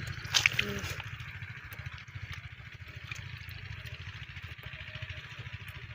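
An engine running steadily with a low, fast pulsing throb, with a brief louder sound about half a second in.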